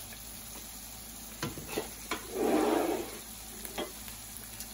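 Chicken curry sizzling faintly in a hot frying pan just after the burner is switched off, with a few clicks of a utensil against the pan and a short stirring scrape about halfway through.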